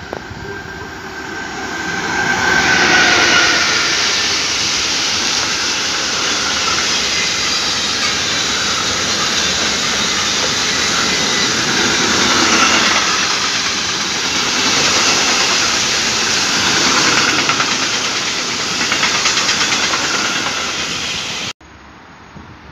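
A freight train hauled by an electric locomotive passes close by: a falling whine as the locomotive goes past about two seconds in, then a steady rush and clatter of wagon wheels on the rails. It cuts off suddenly near the end to a quiet background hum.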